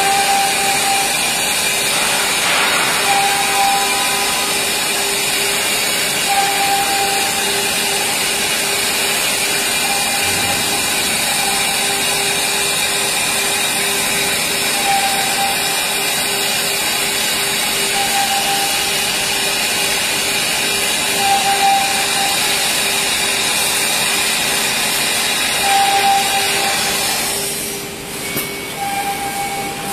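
SUDIAO D1-E door CNC machine's horizontal spindle routing a lock slot into the edge of a wood door panel: a steady high spindle whine over the noise of the cutter in the wood. It drops off sharply about 27 seconds in, leaving a quieter hiss.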